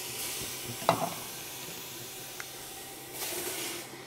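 Pureed onion, celery and carrot sizzling and hissing in hot oil in a stainless steel stockpot. There is a single knock about a second in, and a louder surge of sizzling near the end as more purée is poured in from the food processor bowl.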